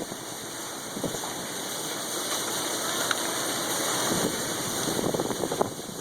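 Steady rush of heavy rain and wind from a severe thunderstorm, growing a little louder partway through.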